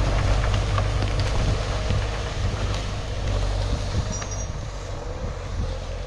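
John Deere 6400 tractor's four-cylinder diesel engine running steadily as it drives off skidding a windthrown trunk behind its forestry winch, growing slowly fainter as it pulls away.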